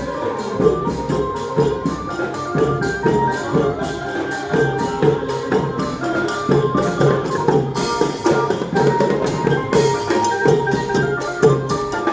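Traditional Thai procession music: drums and jingling hand percussion keep a steady, brisk beat under a melody of short held notes.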